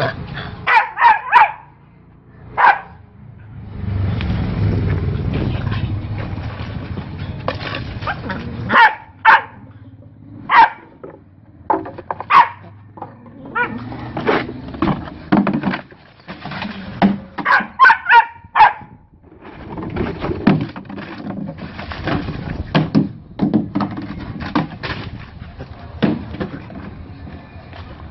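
A dog barking in sharp bursts, often several quick barks in a row, during a scuffle with a monkey, with stretches of rumbling noise between the bursts.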